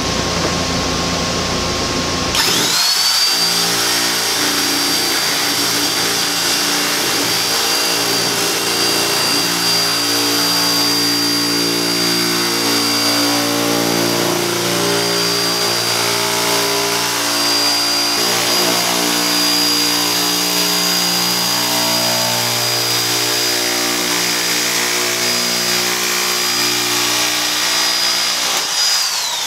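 Chicago Electric electric sheet-metal shear cutting 20-gauge steel sheet. Its motor spins up to a steady high whine about two seconds in, runs through the long cut, and winds down near the end.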